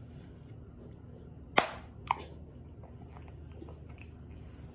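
Two sharp hand claps about half a second apart, the first much louder.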